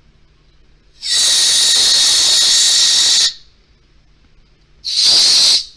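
Aerosol spray can blasting through a thin straw into a carburetor's jets and passages to flush them out: a long hiss of about two seconds, then a second, shorter hiss near the end.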